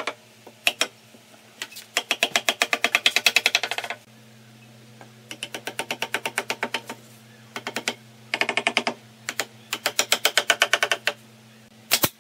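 Wooden mallet knocking on the joints of a wooden table frame in quick runs of sharp taps, about ten a second, five or six runs of one to two seconds each, over a steady low hum.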